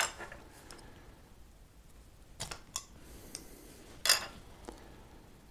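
Handling noise from a soldering iron being taken apart by hand: a few separate light clicks and taps of its plastic handle halves and parts, the loudest about four seconds in.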